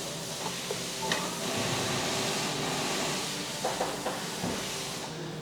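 A steady hiss that swells about a second in and eases off near the end, with a few light clicks and knocks.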